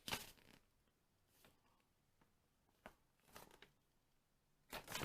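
Faint, scattered rustles of paper instruction sheets being handled, with a small click about three seconds in and louder rustling starting just before the end.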